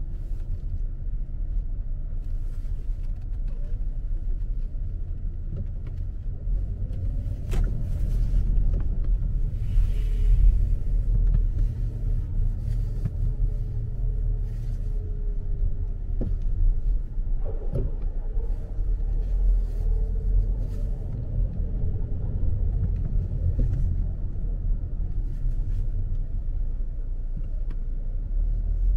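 Car driving slowly along a city street: a steady low rumble of engine and road noise, with a couple of brief knocks.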